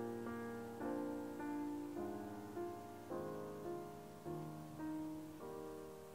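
Gentle piano background music, with notes and chords struck about once a second and ringing away, growing softer toward the end.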